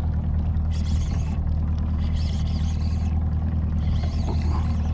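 Outboard engine of a small fishing boat idling with a steady low hum, while a baitcasting reel is cranked in three short spells of higher whirring as a fish is reeled up.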